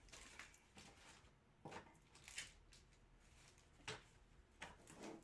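Near silence with a few faint, short taps and rustles, spaced irregularly about a second apart.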